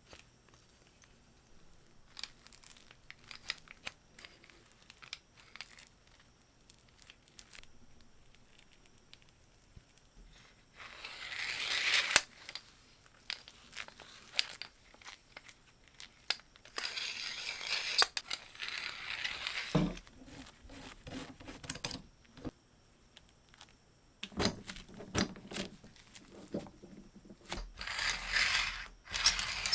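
Hand work at a bench: scattered light clicks and taps, then several scraping bursts of one to two and a half seconds each.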